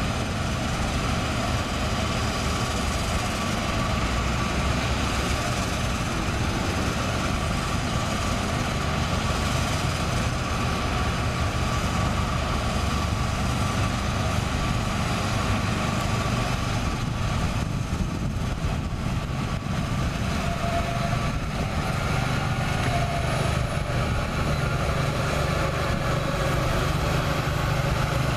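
Diesel engine of a Peterbilt hi-rail spray truck running steadily as the truck rolls along the track.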